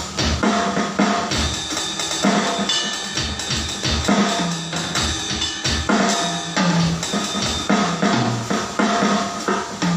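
Drum kit played in a steady groove, with kick drum and snare hits repeating through the whole stretch, during a sound check.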